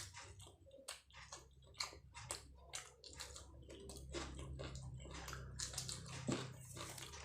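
Close-up chewing of martabak telur with sambal: irregular wet mouth clicks and squelches, several a second.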